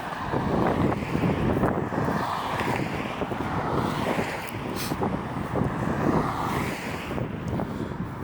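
Road traffic passing on a busy road, cars and lorries swelling in and out, with wind noise on the microphone.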